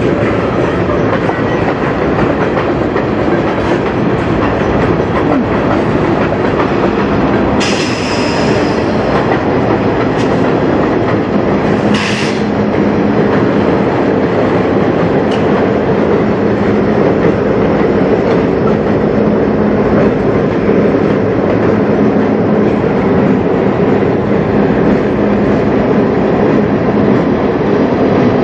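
Freight train of tank cars rolling past, wheels clacking steadily over the rails, with the steady drone of CN diesel locomotives growing in the second half. About eight seconds in there is a brief high metal screech, and a sharp clank about four seconds later.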